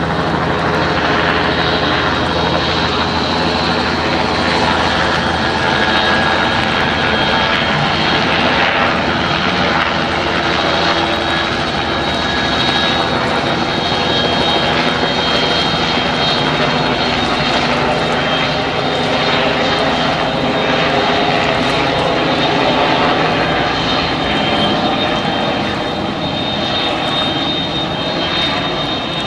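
A loud, steady engine drone with a low hum and no breaks.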